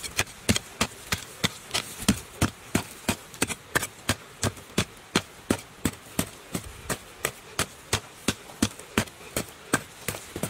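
A hoe blade chopping into dry, hard soil, struck over and over in quick, even strokes, about three a second, each a short sharp hit.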